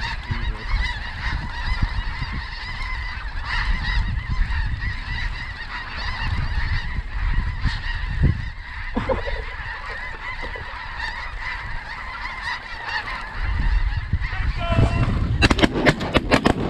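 A large flock of snow geese calling without pause, many high honks overlapping. About a second and a half before the end, a rapid volley of shotgun blasts breaks out.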